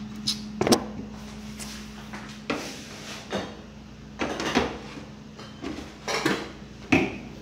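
Metal baking tray clattering and scraping as it is carried to and slid onto the wire rack of a small electric toaster oven: a string of separate knocks and rattles, the sharpest about a second in and again near the end.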